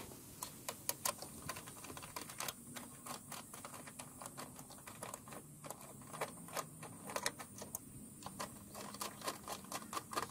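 Hands working on the wiring harness and plastic electrical connectors near the ignition coil and module of a Nissan D21 truck, making faint, irregular light clicks and taps, several a second at times.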